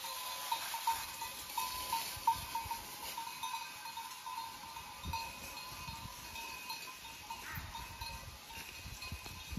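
Bells worn by a flock of goats and sheep, clinking and tinkling irregularly as the animals move about.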